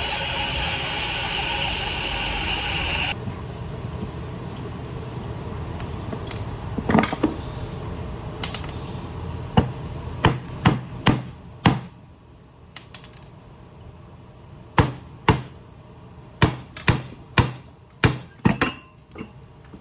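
A small electric fan motor's shaft knocked repeatedly against a wooden workbench to drive the housing off the rotor and bearing. The knocks are sharp and separate, about a dozen in two runs, after a steady noise that stops abruptly about three seconds in.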